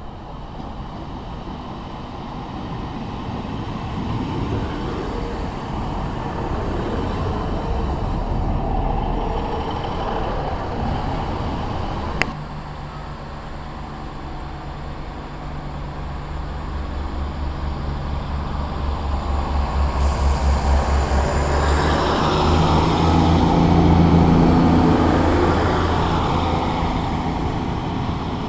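Northern Rail Class 150 Sprinter diesel units passing. The first runs in toward the platform, its engine and wheels on the rails growing steadily louder. After a sudden cut, a second Class 150 runs away past the platform, its underfloor diesel engine throbbing low and steady; it is loudest about three quarters of the way through and then fades.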